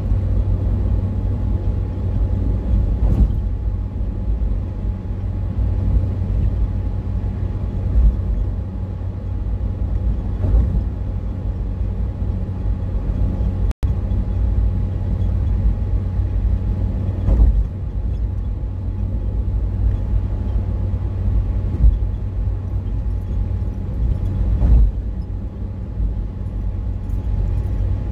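Road noise inside a car cruising along a highway: a steady low rumble of tyres and engine, with a thump every few seconds.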